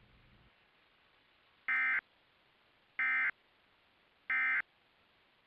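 Emergency Alert System end-of-message signal: three identical short bursts of digital data tones, about 1.3 seconds apart, marking the end of the alert test.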